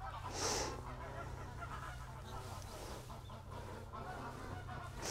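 Geese honking in the distance over a steady low hum, with a short rustle about half a second in.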